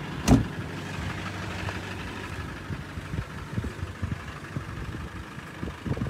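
Land Rover Defender engine idling steadily, with one sharp thump shortly after the start.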